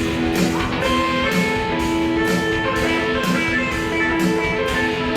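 Rock band's instrumental intro: strummed electric guitars over a steady drum beat, loud and driving.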